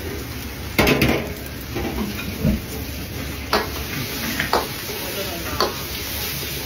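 Food frying with a steady sizzle, broken by the clatter and clinks of metal utensils against the pan: a loud burst of clatter about a second in, then three single clinks.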